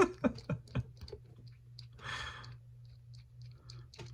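Small clicks and taps of the metal parts of a trick bolt puzzle being handled and fitted back together, most in the first second, with a short exhale about two seconds in.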